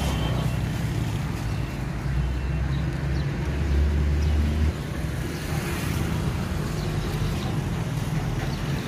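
Outdoor street ambience: a steady low rumble of road traffic, heavier from about two seconds in until it drops off abruptly around halfway through.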